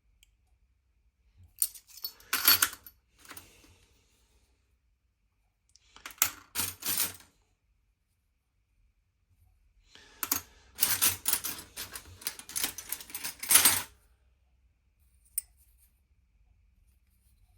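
Small metal watchmaker case-opener dies clinking and rattling against each other as they are handled, in three bursts of clatter, the last and longest lasting about four seconds, with one lone click near the end.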